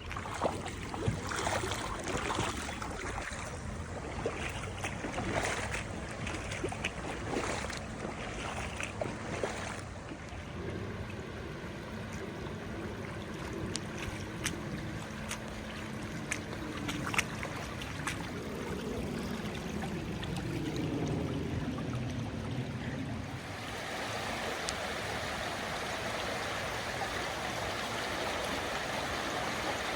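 Rushing floodwater, a steady rush of water noise with scattered clicks and knocks in the first third. About two-thirds of the way through, the water sound becomes fuller and more even.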